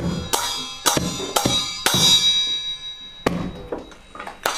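Children's classroom percussion: about seven separate, unevenly spaced drum and hand-percussion strikes, one about two seconds in leaving a high metallic ring for about a second.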